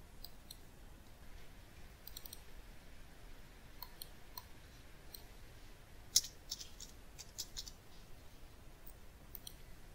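Faint, scattered clicks of a computer mouse and keyboard, with a quick run of key presses from about six seconds in.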